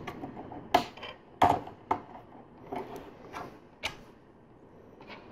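LEGO plastic pieces being handled and pressed together: a string of about seven sharp little clicks and taps, the loudest in the first second and a half.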